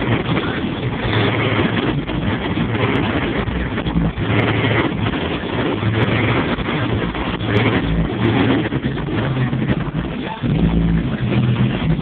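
GMC Yukon's V8 engine running, its exhaust heard at the rear of the truck, with the low rumble swelling and easing every few seconds.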